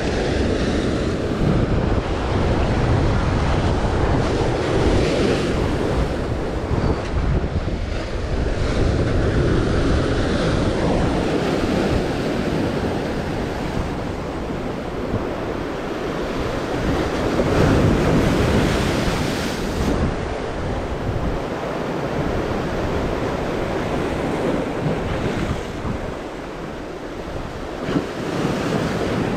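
Rough sea surf breaking and washing over a breakwater of concrete tetrapods, rising and falling as the waves come in, with wind buffeting the microphone.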